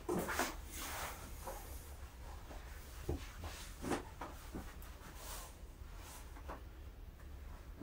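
Faint rustling and a few soft knocks as a person moves about and handles a large cardboard box, over a steady low hum.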